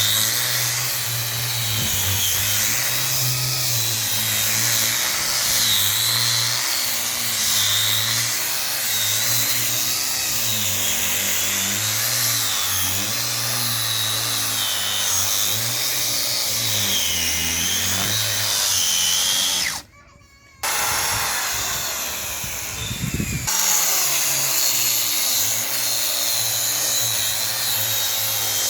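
Electric wood polishing machine running steadily on wood, its motor pitch wavering up and down with the load. It cuts out for about half a second about twenty seconds in, then runs on.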